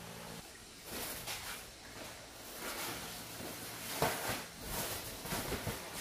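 Several short rustles and light knocks of household things being handled: a woven floor mat being spread out and dishes of food being carried in and set down.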